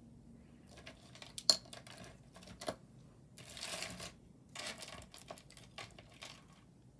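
Metal costume jewelry being handled and set down: a run of small clicks and clinks, the sharpest about a second and a half in, with two short stretches of rustling around the middle.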